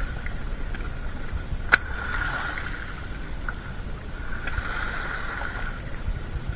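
Fish being picked from a pile of fresh catch and tossed into a plastic basket: rustling handling noise, with a sharp knock a little under two seconds in and a softer one about four and a half seconds in, over a steady low rumble.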